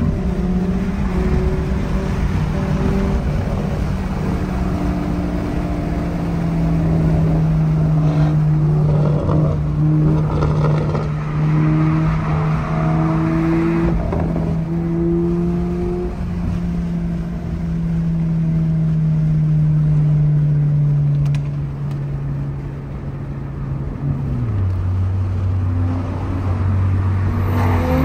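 2023 Toyota GR86's flat-four engine droning steadily under way, heard from inside the cabin over road noise. About 24 seconds in, the engine note drops to a lower pitch.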